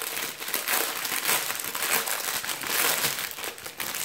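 Clear plastic bag holding small sachets of diamond-painting drills crinkling steadily as it is handled and rummaged through by hand.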